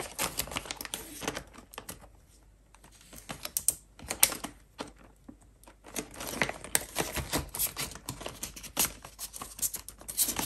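Crinkling and clicking of plastic zip-pocket binder envelopes and polymer banknotes as they are handled, with a short lull about two seconds in.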